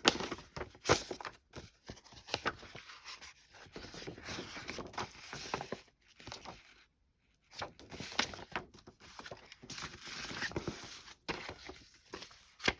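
Paper rustling and crinkling as old greeting cards and paper dolls are handled and shuffled, with sharp crackles throughout and a brief stop a little past halfway.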